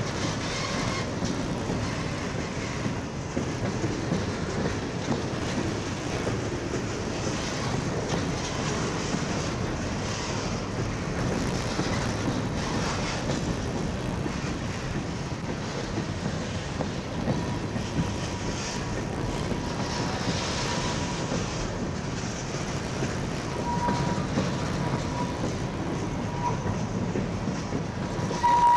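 CSX freight train cars rolling past at speed, a steady rumble of wheels on rail with some clickety-clack at the rail joints. A faint high steady tone comes in during the second half and grows near the end.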